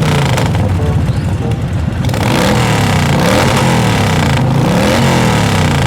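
Motorcycle engine revving, its pitch rising and falling again and again in swells about every second and a half.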